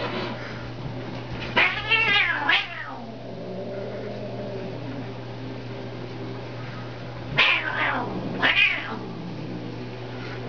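A domestic cat's territorial yowls: two pairs of drawn-out, wavering calls, the first about two seconds in and the second about seven and a half seconds in, each rising and then falling in pitch.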